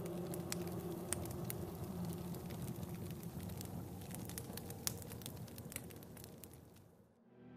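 Campfire crackling and hissing, with irregular sharp pops from the burning wood, fading out near the end.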